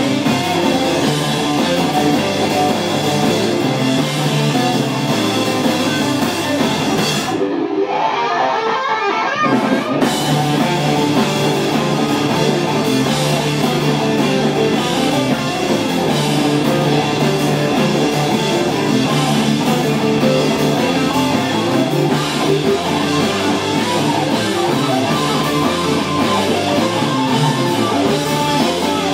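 Live instrumental heavy rock from a four-piece band: two distorted electric guitars, electric bass and a Ludwig drum kit playing together. About a quarter of the way in, the low end and cymbals drop out for about two seconds, leaving a thinner midrange sound, before the full band comes back in.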